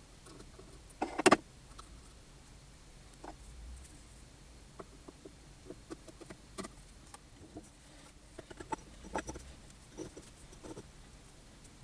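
Scattered light clicks and knocks of small metal parts and hand tools being handled at a workbench, with a louder double knock about a second in.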